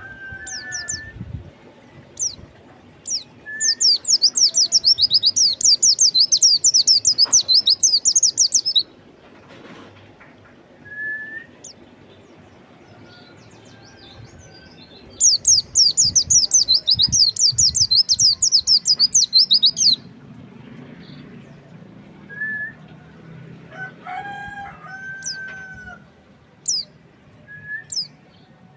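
White-eye (pleci) singing: two long bouts of rapid, high twittering, each about five seconds, with single high chips and a few lower whistles between them. A lower pitched call, like a rooster crowing in the background, comes in the later part.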